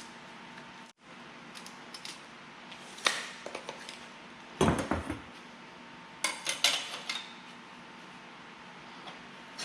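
Steel clamps and frame stock clanking and clinking against a steel welding table as the pieces are clamped down, in three short clusters of knocks.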